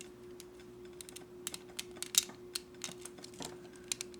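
Small plastic model kit parts clicking and tapping as they are handled and a cap cover is pressed onto its peg, in a scatter of light clicks with the sharpest a little past the middle. A faint steady hum runs underneath.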